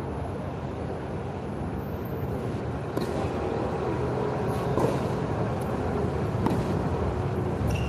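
Tennis rally: a few sharp knocks of the ball off racket strings and the court, spaced a second or two apart, over a steady background rumble.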